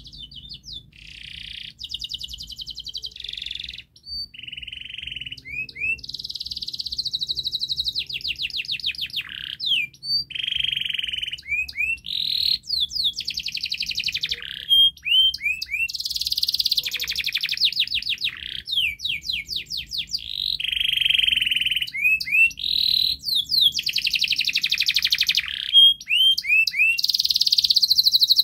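Domestic canary singing a long, vigorous song that starts about a second in: fast trills and rolls, one after another, with short rising chip notes between the phrases.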